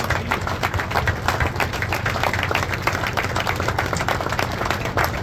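Crowd applauding: many people clapping steadily and unevenly, with a steady low hum underneath.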